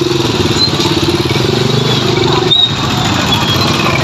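A motorbike engine running close by, its pulsing low note cutting off about two and a half seconds in, over steady background noise.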